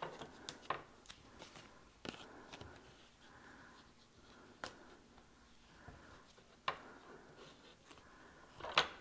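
A roll of easy-tear double-sided adhesive tape being pulled out and torn off by hand, with paper card stock being handled. The sound is a scatter of quiet rustles and sharp clicks, the loudest a quick rip about a second before the end.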